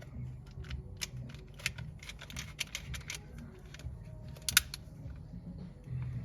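Smena 8M film camera being wound and cocked in a run of small mechanical clicks, then its leaf shutter firing at 1/30 s with one sharp click about four and a half seconds in.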